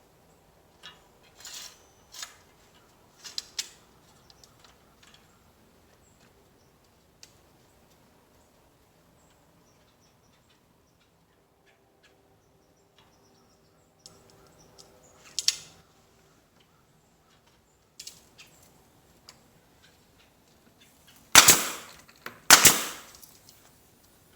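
Scattered sharp knocks and clatter, then two loud sharp bangs about a second apart near the end.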